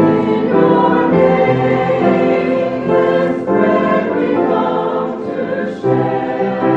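Church chancel choir singing an anthem, with sustained notes that change chord every second or so.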